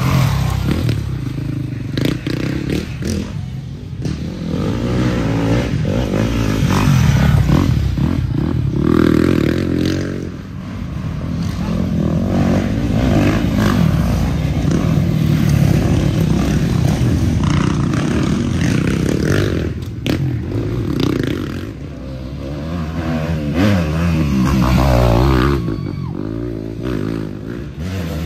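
Racing dirt bikes passing close one after another, their engines revving up and down as each comes through and fades away, with several loud passes swelling and dying off.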